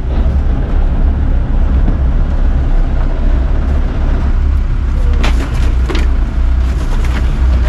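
Charter fishing boat's engine running with a steady low rumble. A few sharp knocks about five to six seconds in as fish are put into a cooler.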